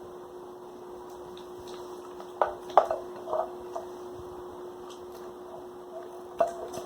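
A spoon clinking and scraping against a pot while stirring a slime mixture, with a few sharp knocks around the middle and another near the end.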